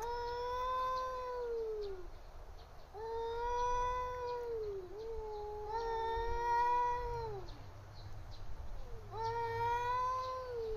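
Cats yowling at each other in a face-off: about four long, drawn-out yowls, each holding its pitch and then sliding down at its end. This is the threatening caterwaul of two cats quarrelling.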